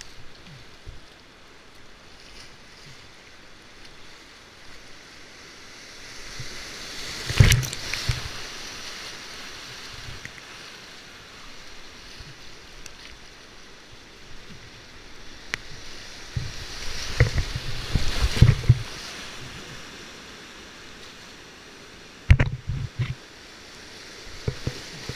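Whitewater rushing around a kayak running a rapid, with paddle strokes and water splashing against the boat. Loud bursts of splashing come about seven seconds in, again for a couple of seconds around seventeen to nineteen seconds, and once more about twenty-two seconds in.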